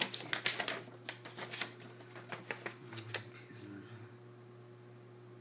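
Hands fumbling with small plastic parts: a quick run of clicks, taps and rustles lasting about three seconds, then stopping, leaving a faint steady hum.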